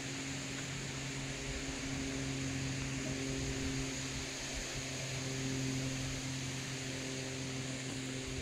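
A steady low hum with a hiss above it, unchanging in pitch and level.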